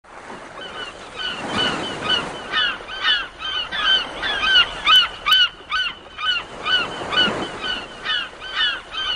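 A flock of birds calling over one another: many short rising-and-falling cries, two or three a second, over a soft rushing noise that swells and fades.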